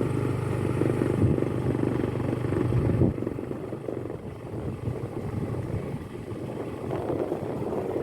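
A motor vehicle's engine running, with road noise. The steady engine note is loud for about three seconds, then turns quieter.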